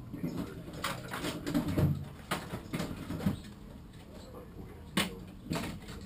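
Irregular knocks and clicks from a Bell Revolver motorcycle helmet being handled at a workbench. The loudest knock comes about two seconds in and another sharp one about five seconds in.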